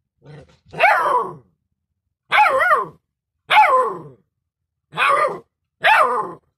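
A puppy giving a run of about five high-pitched, wavering barks, roughly one a second, each sliding down in pitch.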